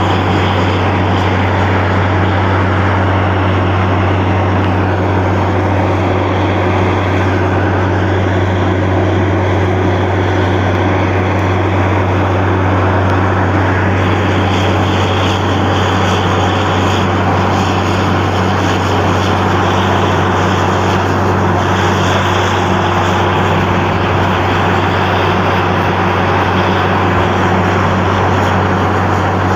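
Borewell drilling rig running, a loud constant drone with a deep steady hum and a dense rushing noise over it that keeps on without a break.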